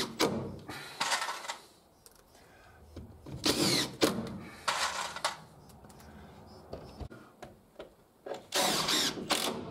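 Cordless drill driving screws into the timber stair treads and risers: several short bursts of the motor whining as each screw is run in, with pauses between.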